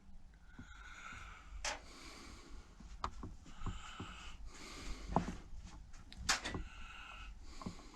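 Faint, scattered clicks and light taps with soft rustling, as of small parts and tools being handled at a workbench; the sharpest tick comes a little past six seconds in.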